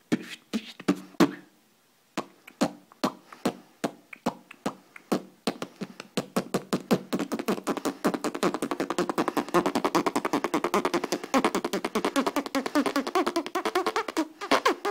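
Beatboxing: mouth percussion clicks and hits, sparse at first, then a fast, dense rhythm from about six seconds in.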